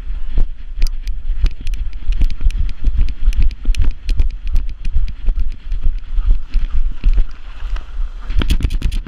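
Wind buffeting the microphone of a dog-mounted action camera, with a fast, irregular string of knocks and thumps as the camera jolts with the running dog's strides.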